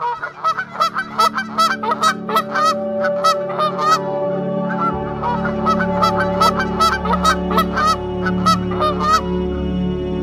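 Greylag geese honking, many short nasal calls in quick succession, about three a second, stopping about nine seconds in. Steady sustained background music tones run underneath and grow fuller about halfway.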